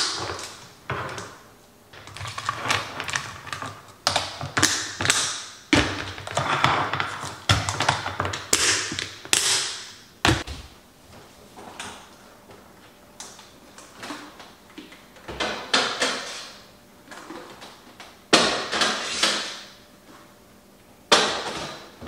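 Plastic locking lids being snapped shut on glass food-storage containers: a run of clicks, taps and clatter as the containers are handled and stacked. Sparser knocks and clatter follow later, as a refrigerator is opened.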